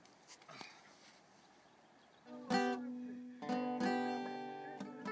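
Background music on acoustic guitar starts a little over two seconds in: plucked chords that ring out and fade, struck again several times.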